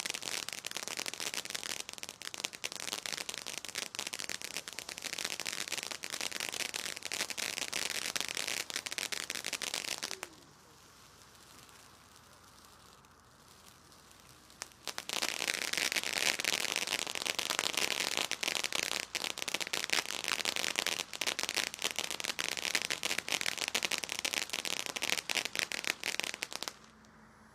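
Consumer firework fountain crackling densely, a rapid stream of small pops. It stops about ten seconds in and, after a few quiet seconds, a second stretch of crackling starts and runs until just before the end.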